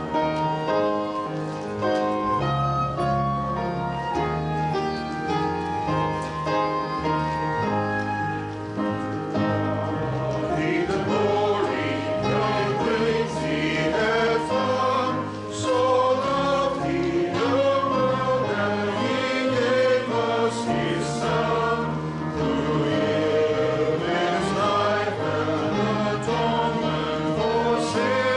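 Piano or organ playing sustained chords, joined about ten seconds in by a choir singing a hymn.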